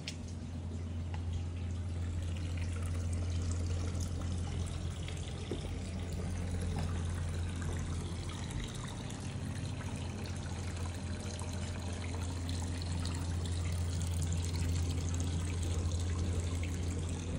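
Water trickling and splashing steadily in a garden fountain's stone channel and pool, over a steady low hum.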